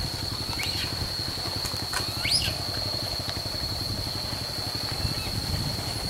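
A steady low rumble like an engine idling, under a constant high-pitched whine. A few short rising chirps come about a second in and again a little past two seconds.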